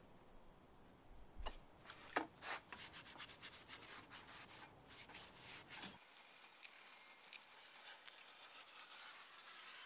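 Hand scrubbing the metal hub of a small charger-cart wheel: a few light clicks, then a run of fast rubbing strokes for several seconds, fading to softer faint scratching near the end.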